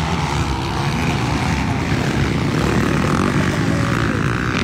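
Motocross bike engines running hard on the track, a steady drone with a higher whine rising in pitch as a bike revs in the second half.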